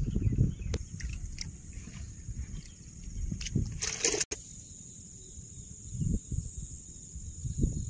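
Water sloshing and splashing with irregular low thuds, and a short loud rush of noise about four seconds in that cuts off abruptly.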